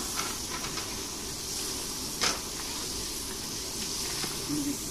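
Curry simmering in a large iron kadai over an open wood fire: a steady hiss of steam and fire, with one sharp click a little past two seconds in.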